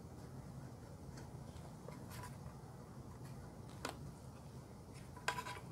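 Faint scattered clicks and rubbing as a rubber gasket is pressed by hand into the groove of an engine's cam cover, over a steady low hum. One sharper click comes about four seconds in and a couple more near the end.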